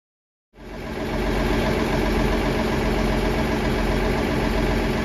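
EMR Regional diesel multiple unit's engine idling with a steady, even drone, cutting in abruptly about half a second in.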